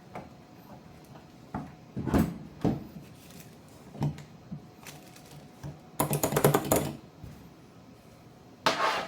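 Keys of an 8BitDo Commodore 64-style mechanical keyboard being pressed: a few separate key clacks, then a quick run of keystrokes about six seconds in and another short burst near the end.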